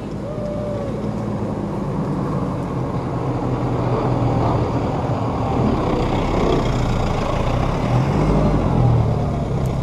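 Four-wheel-drive engine running steadily as the vehicle crosses a dry sandy creek bed, growing louder toward the end.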